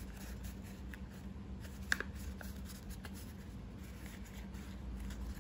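A folded A4 paper origami boat being pressed and shaped by hand: faint paper rustling and crinkling, with one sharper crinkle about two seconds in, over a low steady hum.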